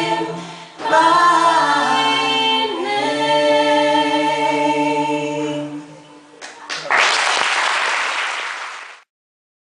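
Unaccompanied mixed voices of an a cappella group holding the final chord of a carol, which fades out about six seconds in. A couple of clicks follow, then about two seconds of loud, even noise like applause before the recording cuts off.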